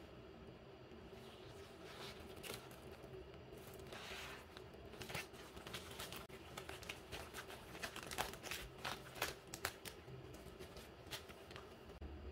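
Plastic bubble mailer crinkling and crackling as it is handled and opened, in irregular crackles that are busiest through the middle, over a faint steady room hum.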